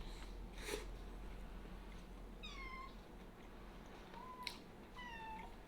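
A pet cat meowing three times, short calls that drop slightly in pitch, begging for food. A sharp click comes just after the second meow.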